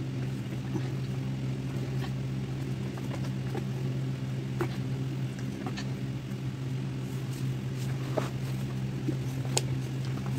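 A steady, low mechanical hum, like a running motor, with a few faint clicks and taps about halfway through and near the end.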